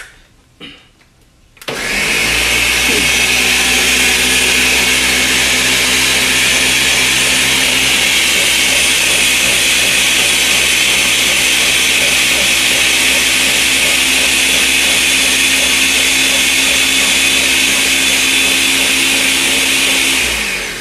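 Ninja Professional countertop blender switching on a couple of seconds in and running steadily at full speed, puréeing boiled tomatoes, onion and garlic into a liquid salsa. Its motor pitch drops as it winds down near the end.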